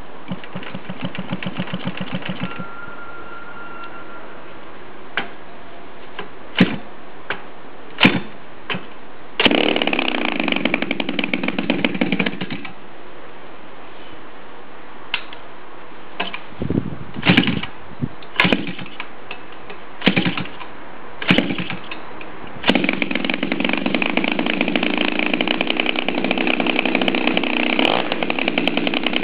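Turnigy 53cc flat-twin two-stroke model aircraft engine with a 22x10 wooden propeller, hand-flipped for its first start. It fires in short runs that die out, with single sharp pops from the flips in between, then catches about 23 seconds in and runs steadily.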